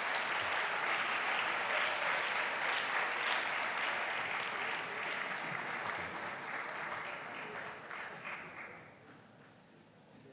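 Audience applauding steadily, dying away about eight to nine seconds in.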